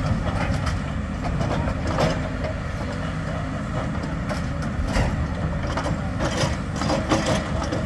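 Demolition excavators' diesel engines running, with scattered knocks and crunches of rubble and metal as they work the debris.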